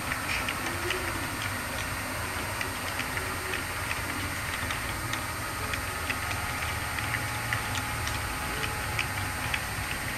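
Model railroad freight cars rolling past on track, their metal wheels ticking irregularly over the rail joints, several clicks a second, over a steady low rolling hum.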